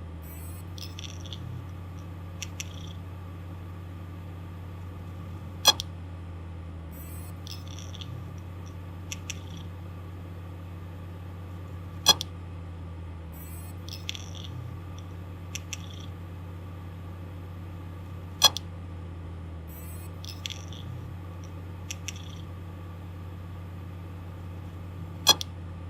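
Failing hard disk drive: the spindle motor spins with a steady low hum while the read/write heads give a loud sharp click about every six seconds, four times, with softer ticking between. This repeating clicking is the sign of a malfunctioning drive.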